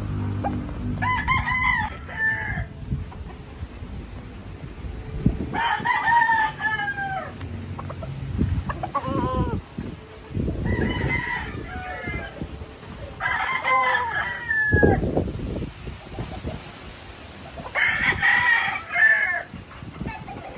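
Gamefowl roosters crowing repeatedly, about six long crows a few seconds apart, each falling away at its end.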